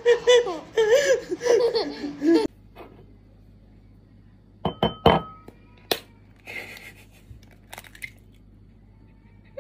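A young girl laughing and giggling, with a man laughing along, which stops abruptly two and a half seconds in. After a pause come a few sharp taps and clicks in quick succession, then a short rustle and a couple of fainter clicks.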